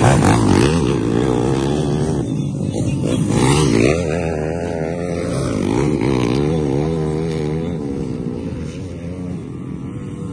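Race motorcycle engines revving hard through a dirt-track corner, the pitch rising and falling again and again with the throttle. Loudest at the start as a bike passes close, then fading as the bikes ride away.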